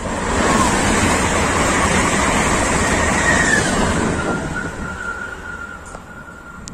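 Renfe S 130 Alvia express train passing through a station at speed: a loud rush of wheels on rail and air that swells and then fades. A high whine drops in pitch as the train goes by.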